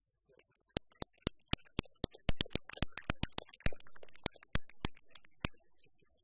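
Applause from an audience: a few sharp, separate handclaps at first, thickening into scattered clapping and then tailing off near the end.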